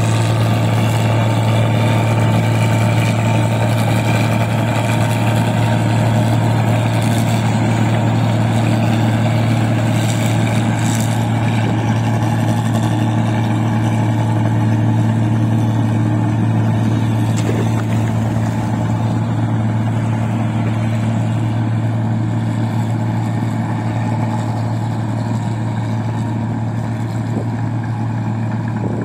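Rice combine harvester's engine running steadily as the machine works through a muddy paddy, a loud, even low hum that grows slightly fainter over the last several seconds as it pulls away.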